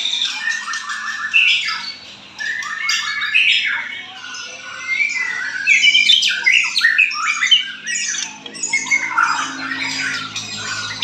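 Several competing songbirds singing and calling at once, a dense, overlapping mix of rapid chirps, trills and harsh squawks.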